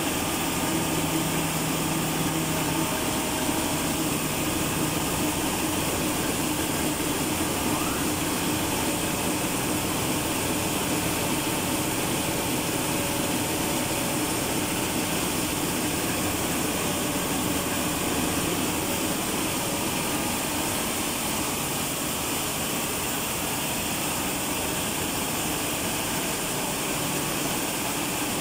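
Large in-line multi-cylinder Zichai marine diesel engine running steadily in an engine room: a loud, even mechanical din with no change in speed.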